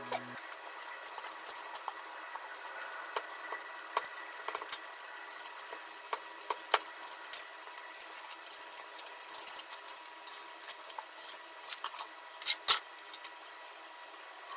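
Soft rubbing of a wooden chopstick rolled over sheets of deep-fried tofu on a wooden cutting board, with scattered light taps. Later a kitchen knife cuts the tofu and knocks on the board, two sharp knocks near the end being the loudest.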